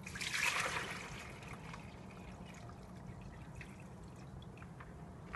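Water poured from a plastic bucket into a chickens' water dish: a splashing pour in the first second or so, then it tails off to faint dribbling with a few small knocks.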